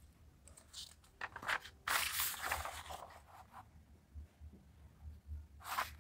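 Paper rustling and crinkling as a page of a printed exam booklet is turned, loudest from about a second in for two seconds, with a short rustle again near the end.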